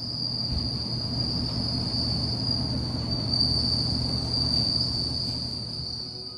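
Bell crickets (suzumushi) singing: an unbroken high-pitched ringing trill over a low rumbling background, fading near the end.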